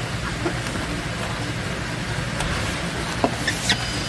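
Crinkling and crackling of a foil-faced Dynamat sound-deadening sheet being handled and pressed onto the floor pan, with a few sharp crackles about three seconds in, over a steady low hum.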